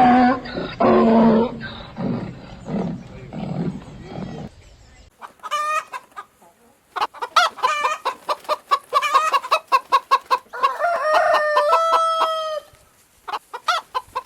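Chickens clucking in quick short calls, about three or four a second, with one long drawn-out call a little past the middle. The first few seconds hold lower, repeated calls of another kind.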